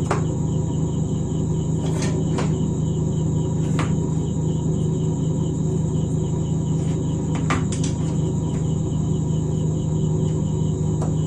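Steady low hum with an even, rapid high-pitched pulsing chirp over it, and a few light clicks of tools being handled.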